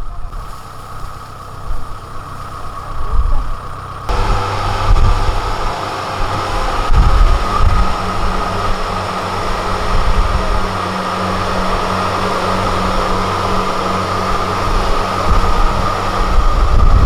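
Rice combine harvester's diesel engine running hard with a steady high whine. It jumps suddenly louder about four seconds in and then holds steady.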